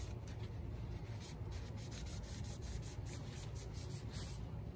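A rag wiping a mower engine's oil dipstick clean: a run of many short rubbing and rustling strokes over a steady low background hum.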